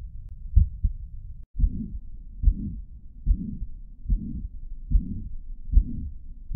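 Recorded heart sounds through a stethoscope. After a brief break, each beat has a short low first heart sound followed at once by a longer low whooshing systolic murmur, about 72 beats a minute, as taught for mitral regurgitation.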